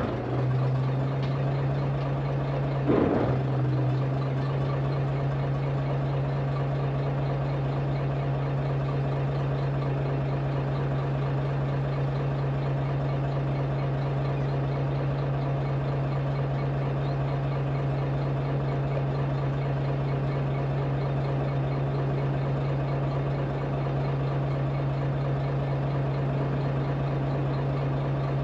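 Chartered fishing boat's engine running steadily at idle, a low even hum, with a brief knock about three seconds in.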